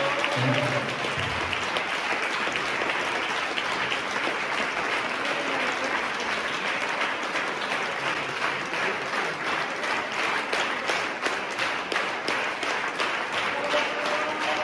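Large audience applauding. About halfway through, the clapping falls into a steady rhythm in unison.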